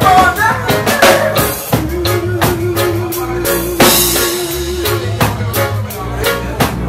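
Live reggae band playing: drum kit keeping a steady beat under electric guitar and keyboards, with a long wavering held note through the middle and a cymbal crash about four seconds in.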